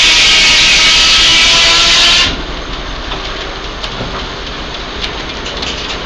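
Antique sawmill running: a loud hissing noise with faint whining tones cuts off abruptly about two seconds in. The belt-driven machinery then keeps running steadily with light scattered clicks and knocks.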